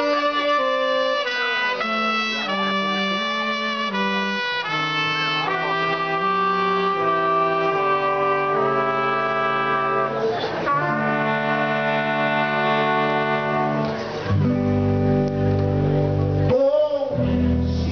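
Live soul band: a trumpet plays a slow line of long held notes. About fourteen seconds in, the rest of the band comes in underneath with a low bass line.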